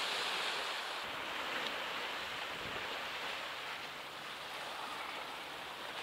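Steady wash of sea surf.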